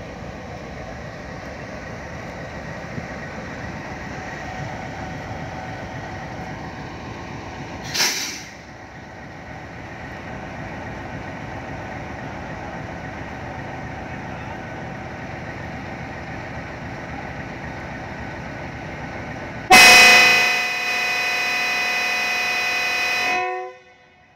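Diesel locomotive's engine running steadily as the train pulls out, with a brief loud burst about eight seconds in. About twenty seconds in, the locomotive's air horn sounds loudly for about three and a half seconds, then cuts off.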